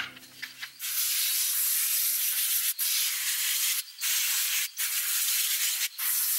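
Microfiber towel rubbing over the inside of car window glass: a series of long wiping strokes with short breaks between them.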